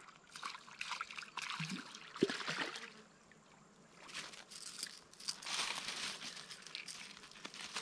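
A hooked perch splashing and thrashing at the surface as it is pulled to the bank and lifted out by hand, with water sloshing and dripping in irregular bursts.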